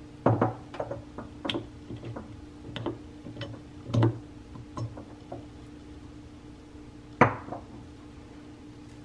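Black pump on a glass mason-jar soap dispenser pressed and handled, giving a run of short plastic clicks and glass knocks as dish soap is squirted onto a sponge. About seven seconds in, one sharp, ringing glass clink as the jar is set down.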